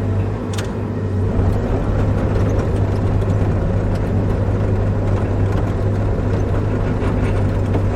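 Bobcat E55 compact excavator's diesel engine running at a steady, unchanging pitch, heard from inside the cab.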